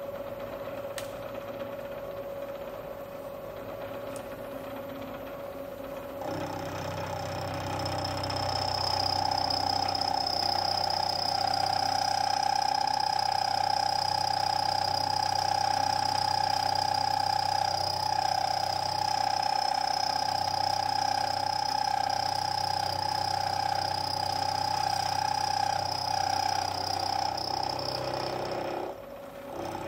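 Milling machine spindle running, then about six seconds in the cutter bites into EN25 alloy steel, taking a pinion tooth slot at 900 RPM. It makes a steady, high-pitched cutting whine over a low rumble that stops near the end as the cutter clears the work.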